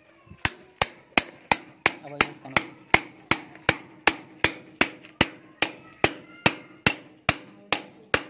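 Hand hammer striking at the mortar beneath a concrete block to knock the block out of a freshly built wall, in steady sharp blows about three a second.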